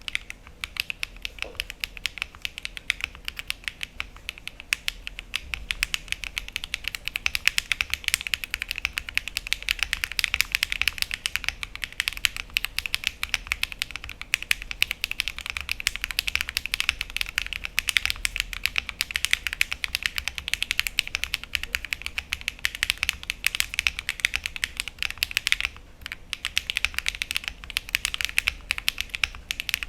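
Mechanical keyboard with lubed HMX Cheese linear switches (JRIS75 board) being typed on steadily: a fast, dense run of keystrokes, with a brief pause about three quarters of the way through.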